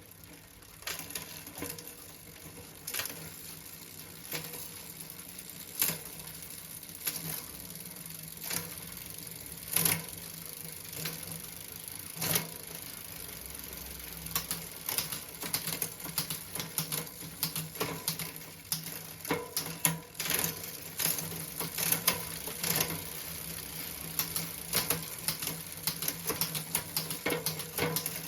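A bicycle drivetrain with an L-TWOO A7 10-speed rear derailleur and an 11-46 10-speed cassette: the chain runs steadily over the cogs, with sharp clicks as the gears shift. The clicks are a few seconds apart at first and come thick and fast in the second half.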